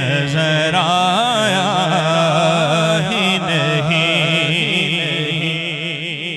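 Male naat reciter singing a long, wavering melismatic line with no clear words, over a steady low drone.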